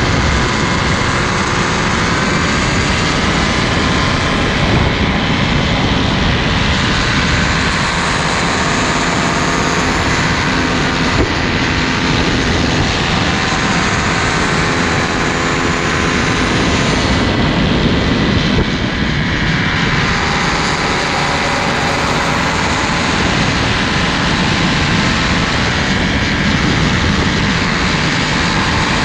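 Paramotor engine and propeller running steadily in flight, mixed with heavy wind noise; the engine's pitch drifts slightly up and down.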